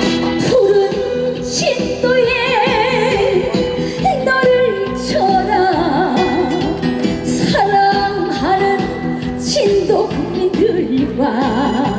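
Live trot band music playing an instrumental break between sung verses: a melody line with wide vibrato over sustained backing chords.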